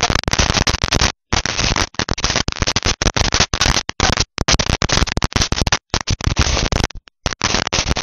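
Dinosaur novelty ground fountain firework erupting: a loud, dense, rapid crackling and popping of sparks. The sound cuts out completely for brief moments several times.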